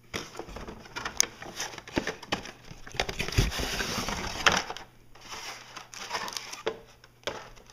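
A cardboard box and a plastic electronics controller being handled on a table: scattered clicks and knocks, with a longer rustling scrape in the middle.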